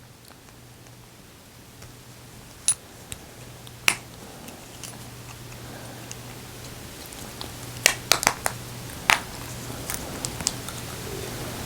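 Sharp plastic clicks and taps of a Ford key fob's plastic case being handled and snapped back together: single clicks about three and four seconds in, a quick cluster of clicks around eight seconds, then a few lighter ones, over a faint steady low hum.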